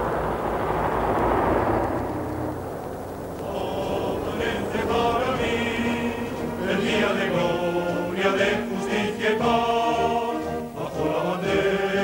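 A noisy rumble for the first two seconds or so, then a choir singing a song with held notes, as music laid over the film.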